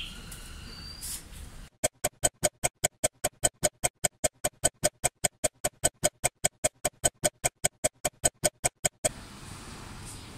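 Rapid, evenly spaced clock ticks, about five a second, starting a couple of seconds in and stopping suddenly about nine seconds in.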